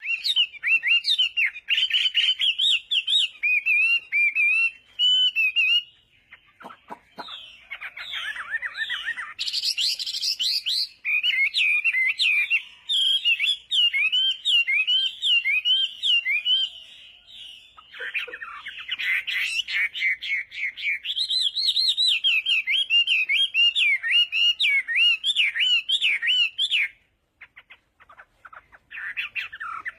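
Many small birds chirping at once, a dense run of quick, high repeated chirps. It thins out briefly twice, about six seconds in and again near the end.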